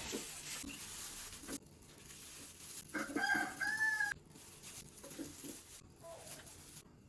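A rooster crowing once, about three seconds in, for about a second, with a few faint knocks around it.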